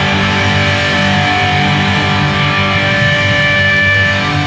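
Live rock band playing a bluesy instrumental passage: electric guitars over bass, drums and keyboards, with a long held high note about halfway through.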